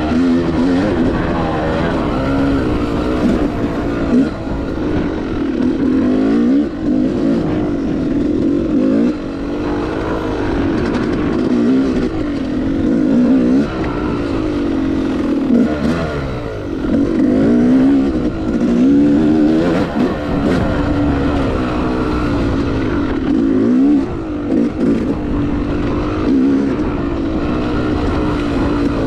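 Yamaha YZ250X 250 cc two-stroke single-cylinder dirt bike engine under way, its pitch rising and falling every second or two as the throttle is worked on and off.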